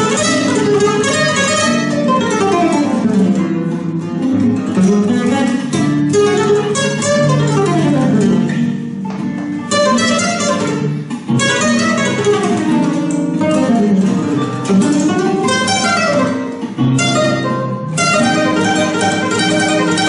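Flamenco guitar playing: quick runs of single notes rising and falling, broken now and then by sharp strummed chords.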